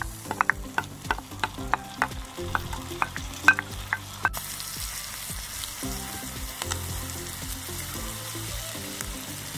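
Chopped lamb kokoreç with tomatoes and peppers sizzling on a hot saj pan. For the first four seconds a utensil clicks and scrapes against the metal as the mixture is stirred, several times a second. After that there is mostly steady sizzling.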